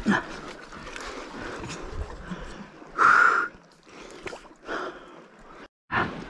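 A few short, loud bursts of breathing and grunting, the loudest about three seconds in, from an angler straining to hold a hooked shark on a spinning rod.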